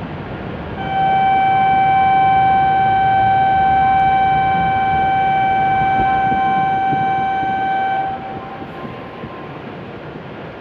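A single steady horn-like tone sounds for about seven seconds, starting about a second in and stopping sharply, over the steady background noise of a shinkansen platform.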